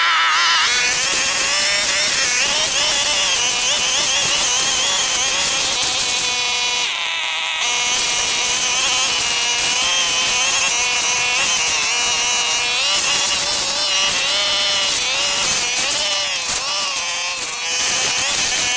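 Brush cutter's small petrol engine running at high revs as it cuts grass and weeds, its pitch wavering up and down with the load. It eases off briefly about seven seconds in, then picks up again.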